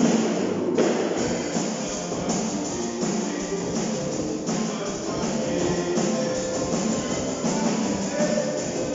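Small rock band playing live: guitars over a drum kit keeping a steady beat.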